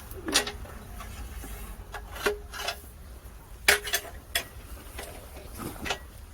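Hard objects being handled: about seven sharp knocks and clinks at irregular intervals, a few with a short ring, over a low steady rumble.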